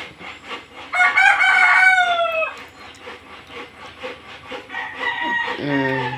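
A rooster crowing once, a long call about a second in whose pitch falls slightly as it goes.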